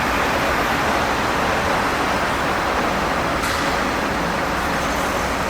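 Steady, loud rushing noise of a moving vehicle, with no distinct events.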